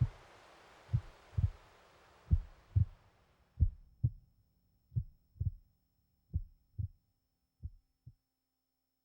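Slow heartbeat, paired lub-dub thumps about every 1.3 s that stop about 8 s in. A steady hiss underneath fades out about 3.5 s in.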